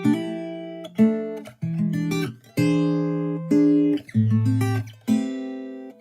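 Background music: an instrumental stretch of a song, with acoustic guitar plucking chords whose notes ring and die away one after another.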